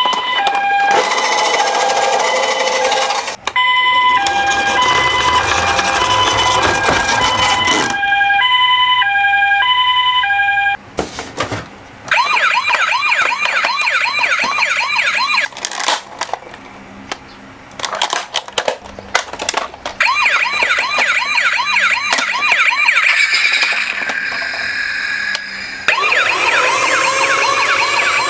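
Electronic toy sirens from minicar emergency vehicles. For about the first ten seconds a two-tone hi-lo ambulance siren alternates between two notes. After a brief break, a fast warbling yelp siren takes over, and near the end it turns into rising wails.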